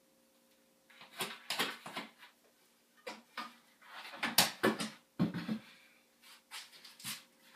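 Irregular knocks, bumps and scraping of wooden boards as a closet frame is handled and fitted by hand, the loudest knocks about halfway through.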